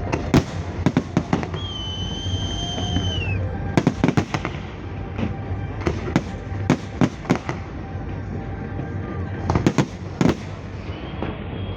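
Fireworks bursting overhead: a string of sharp bangs and crackles, some in quick clusters, over a steady rumble. A high steady whistle sounds from about a second and a half in and dips in pitch as it fades out about two seconds later.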